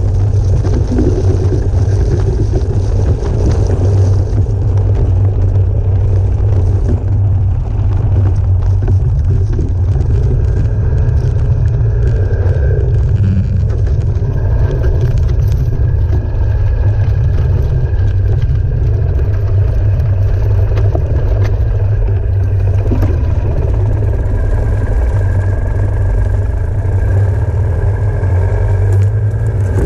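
Ural sidecar motorcycle's air-cooled flat-twin engine running steadily under load, a low, even engine note with no let-up, as the rig drives through snow.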